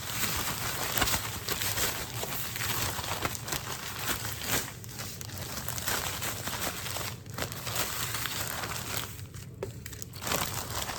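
Plastic zip-top bag crinkling and rustling as whole catfish are shaken and turned in dry fish-fry coating mix inside it, easing off briefly near the end.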